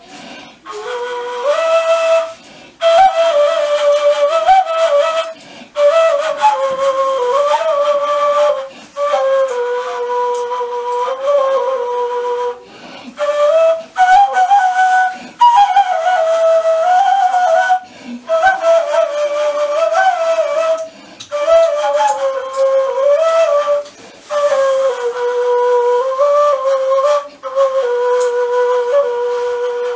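Kaval, the Turkish end-blown shepherd's flute, playing a slow solo melody in phrases of a few seconds broken by short pauses.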